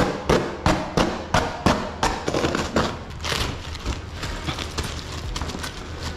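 A run of regular thuds, about three a second, then plastic wrapping rustling and crinkling from about two seconds in, as a new ironing board is pulled out of its black and clear plastic packing.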